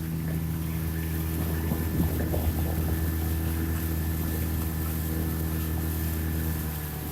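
Motorboat engine running at a steady hum, easing off near the end.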